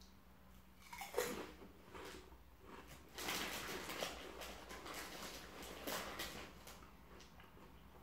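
Potato crisp being crunched and chewed with the mouth closed: faint irregular crackles that begin about a second in, are thickest in the middle and thin out near the end.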